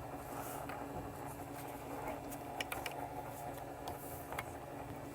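Quiet room tone with a steady low hum, broken by a few faint short clicks, two close together past the middle and one near the end.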